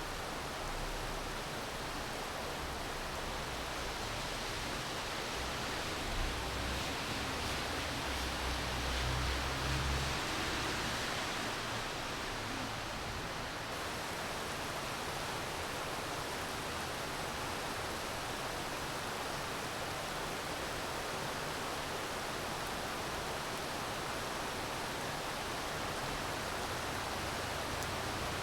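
Steady rainfall, an even hiss with no break. A low rumble swells briefly about eight to ten seconds in.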